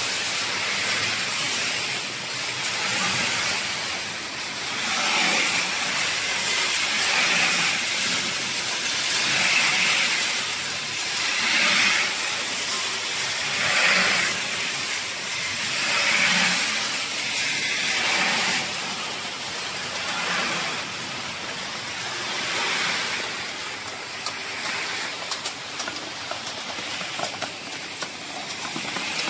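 Pet food production line machinery running, a steady mechanical hiss and rumble that swells and fades about every two seconds.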